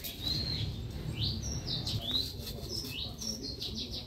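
Small birds chirping in a quick run of short, high chirps, several a second, over a steady low rumble.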